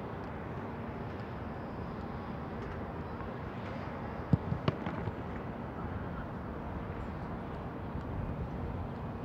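Steady outdoor background noise. A little over four seconds in comes a single sharp thud of a football being struck, followed by a few softer thumps within the next second.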